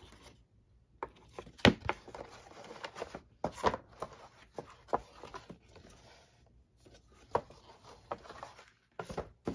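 Cardboard paper-doll boxes being handled and set down on a tabletop: rustling and scraping with a string of sharp knocks and taps, the loudest about one and a half seconds in.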